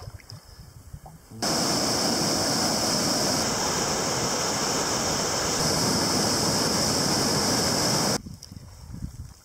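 Whitewater rapids rushing over rock ledges: a loud, steady wash of water that starts abruptly about a second and a half in and cuts off suddenly near the end.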